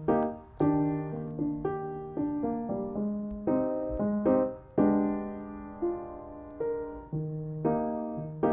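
Background music: a gentle melody of piano-like keyboard notes, one struck every half second or so and fading.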